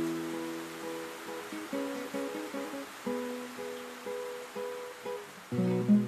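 Background music: a plucked acoustic guitar picking a repeating pattern of single notes, with lower bass notes joining near the end.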